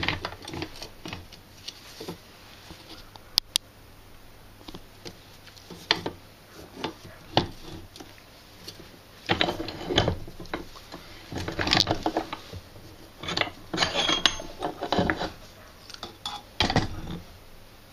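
Large steel impact socket being handled and knocked against metal parts while setting up to press out a swingarm bearing: irregular clinks, scrapes and clatters, coming in short clusters every second or two.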